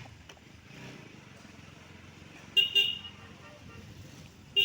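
Vehicle horn honking: two quick short toots about two and a half seconds in, then one more short toot near the end, over low steady road noise.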